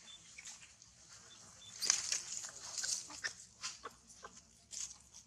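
Macaques shifting about on dry leaf litter: scattered short rustles and clicks, with a denser rustling burst about two seconds in, and a few faint brief high peeps.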